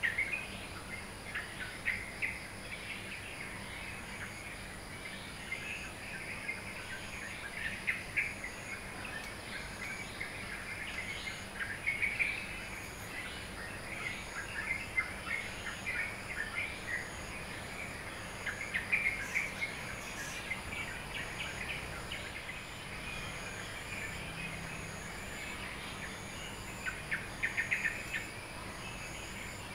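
Dawn chorus of many small birds chirping and twittering in irregular bursts, over a steady high insect trill and a faint high note repeating about once a second.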